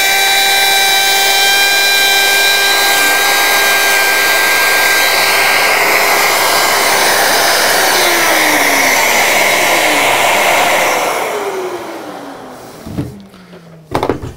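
DeWalt D26204K router running at full speed, then switched off, its whine sliding down in pitch as the motor spins down and fading out about twelve seconds in. A couple of knocks follow near the end.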